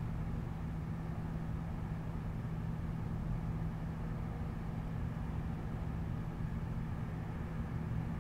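Steady low hum and rumble of city background noise heard through window glass, with no single event standing out.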